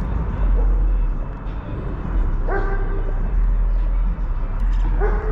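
Steady low rumble of wind buffeting the microphone, with two short pitched yelps, one about halfway through and one at the very end.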